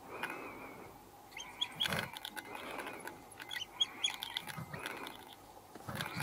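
African wild dog pups twittering and squeaking in short, high chirps as they crowd an adult's mouth, begging to be fed. A few soft knocks from scuffling are mixed in.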